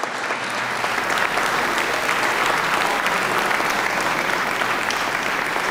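A chamber full of people applauding, a steady round of clapping that builds over the first second.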